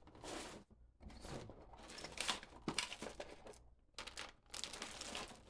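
Packaging crinkling and rustling as parts are handled out of a faucet box, in irregular bursts with a couple of brief pauses.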